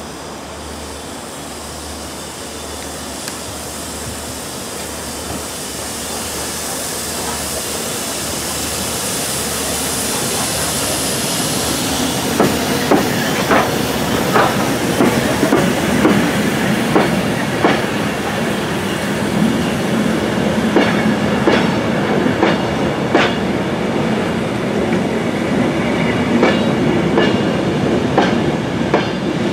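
Steam locomotive No. 85 Merlin hauling Mk2 coaches past at low speed, growing steadily louder as it approaches. From about twelve seconds in, the coaches roll by close with their wheels clicking over the rail joints about once a second.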